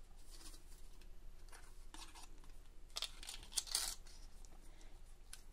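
Faint rustling and sliding of card stock and paper as a folded notecard is handled and closed, with a few louder rustles about three to four seconds in.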